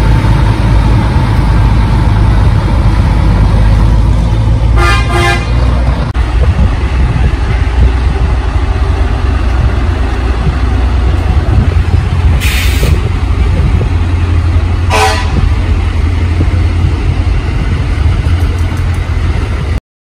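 Vintage trucks' diesel engines running loud as they drive past in parade. A truck horn toots twice in quick succession about five seconds in and once more about fifteen seconds in, with a brief burst of hiss about twelve seconds in. The sound cuts off suddenly just before the end.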